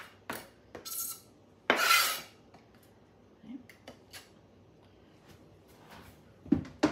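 Knife blade scraping chopped peppers off a cutting board into a pot: a few rasping scrapes, the loudest about two seconds in. They are followed by light clicks and two sharper knocks near the end.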